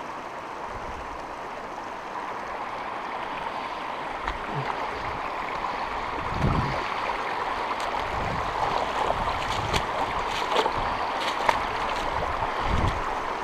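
Shallow river water running over rocks, a steady rushing that slowly grows louder, with a few dull low thumps in the second half.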